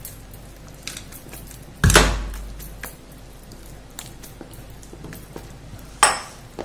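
Thick urad dal batter being beaten in a bowl, with scattered light clicks and two louder knocks against the bowl, one about two seconds in and one near the end.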